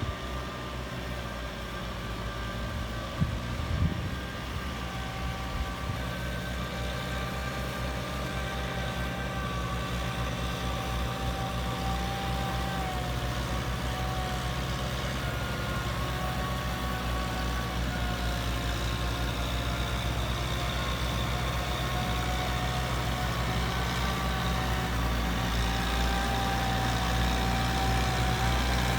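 Tractor engine running steadily, with a high, wavering whine over the hum. It grows gradually louder, with a couple of sharp knocks about three to four seconds in.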